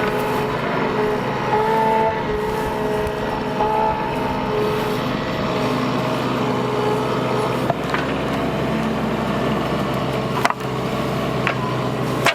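Bobcat mini excavator's diesel engine running under load while digging, with a pitched hydraulic whine that shifts up and down in the first few seconds. A couple of sharp knocks from the bucket come later.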